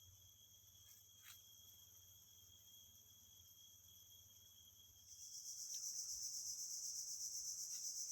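Insect chorus of steady, high-pitched shrilling from several insects; about five seconds in, a louder, higher insect song starts up and carries on.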